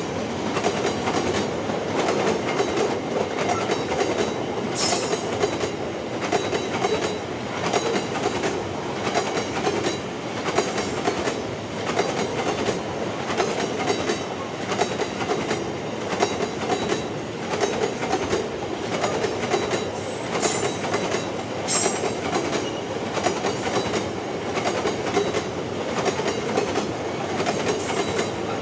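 A long train of empty narrow-gauge grain hopper wagons rolling past close by. Steel wheels on the rails make a steady rumble with a regular rhythmic clatter, and there are brief high squeals a few times.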